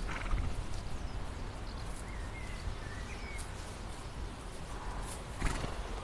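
Horses grazing close by, tearing and munching grass in short crackly bursts, over a steady low rumble, with a couple of faint high chirps a few seconds in.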